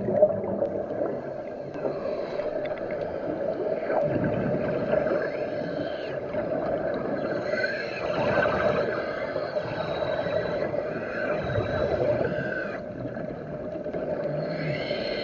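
Underwater sound: a steady hum with gurgling and faint wavering whines.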